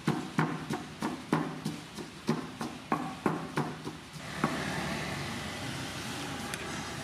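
Wooden pestle pounding herbs and spices into a paste in a wooden mortar: a regular run of dull thuds, about three a second. The strokes stop after about four and a half seconds, and a steady, even noise follows.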